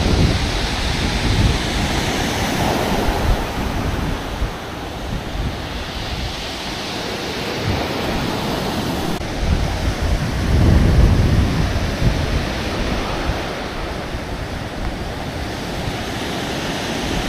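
Sea surf washing onto the beach, with wind gusting across the microphone; the low buffeting is strongest near the start and again about ten to eleven seconds in.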